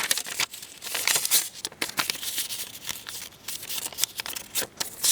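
A sheet of paper being folded into quarters: irregular crinkling and rustling as it is handled, with sharp creasing strokes as the folds are pressed down.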